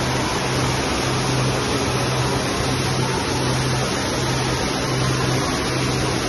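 Artificial rock waterfall pouring steadily into a pool, with a low hum underneath that drops out briefly about once a second.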